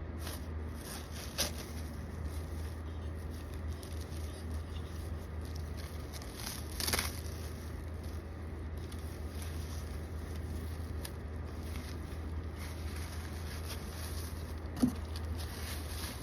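Quiet handling noises: a few light clicks and knocks, the sharpest near the end, and a brief scrape or rustle about seven seconds in, over a steady low hum.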